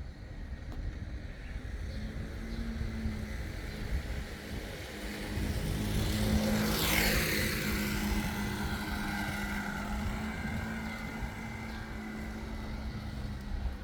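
A motor vehicle passing by. Its engine hum builds to its loudest about six to seven seconds in, where a hiss sweeps quickly down in pitch as it goes past, then slowly fades.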